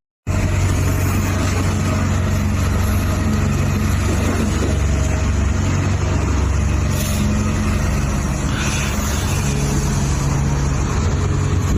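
RC excavator running with a steady, low engine-like drone that holds even throughout, after a split-second dropout right at the start.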